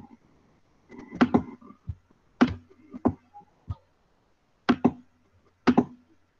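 A series of sharp taps and knocks: about nine in all, several in close pairs about a second apart, the rest single, over a faint steady low hum.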